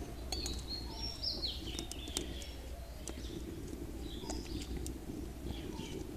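Birds chirping: a string of high notes stepping up and down in the first two seconds, then more calls around four seconds in, with a few sharp clicks over a low steady hum.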